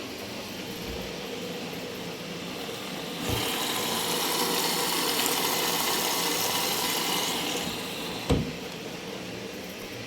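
Arçelik washing machine on its intermediate spin, a steady machine hum. About three seconds in a loud hiss sets in and fades out near eight seconds, followed by a single sharp knock.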